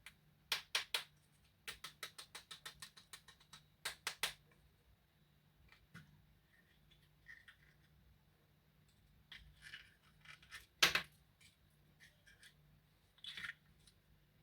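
A run of sharp clicks and crackles from candy and its packaging being handled up close. Three crisp clicks come first, then a quick train of about seven clicks a second about two seconds in, then scattered clicks, the loudest about eleven seconds in.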